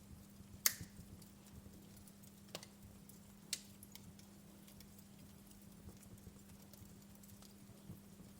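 Logs burning in a fireplace, crackling with scattered sharp pops. The loudest pop comes just under a second in, and two more come around three seconds in, among faint small ticks over a low steady hum.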